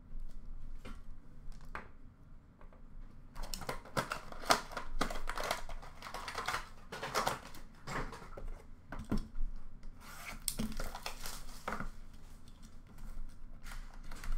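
Rustling, crinkling and tearing of trading-card packaging being opened by hand, with irregular small clicks and taps of plastic. Quiet for the first few seconds, busy from about three seconds in.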